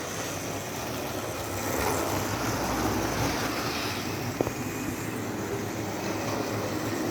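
Model train running on its track: a steady whirring rumble from the locomotive's small electric motor and wheels on the rails, growing a little louder about two seconds in.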